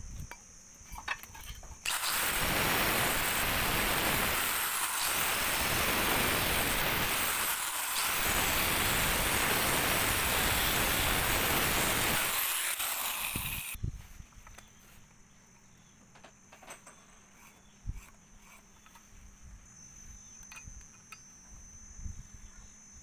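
Power grinder's abrasive disc grinding the edge of a piece of scrap steel channel. The loud grinding starts about two seconds in, eases briefly twice, and stops about fourteen seconds in, leaving light clicks of the metal being handled.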